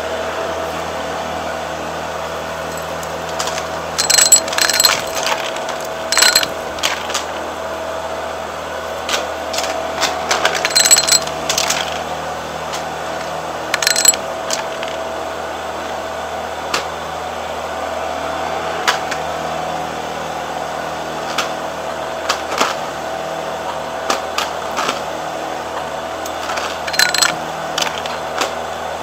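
Vacuum cleaner motor running steadily, with several short bursts of metallic clinking and rattling from coins.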